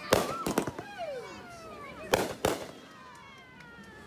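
Fireworks going off: sharp bangs in a cluster near the start and a pair about two seconds in, between them several whistles that slide down in pitch.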